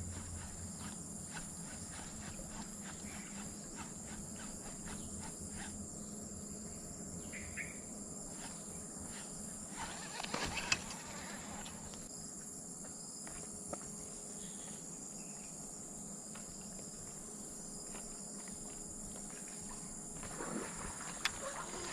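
Steady high-pitched chirring of insects, crickets or cicadas, running without a break. A short rustle with a few soft clicks comes about halfway through.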